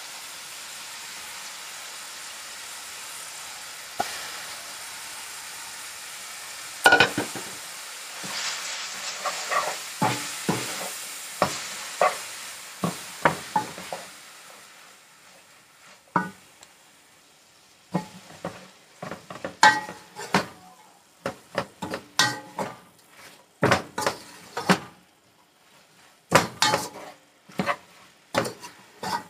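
Chopped collard greens and sautéed vegetables sizzling in hot oil in a pan while a wooden spoon stirs them. The sizzle dies away after about fourteen seconds, leaving the spoon's quick, irregular knocks and scrapes against the pan.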